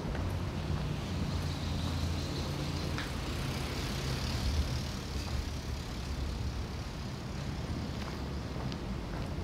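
A motor vehicle's engine running close by with a steady low hum. A swell of engine and road noise peaks about halfway through, as a vehicle goes by.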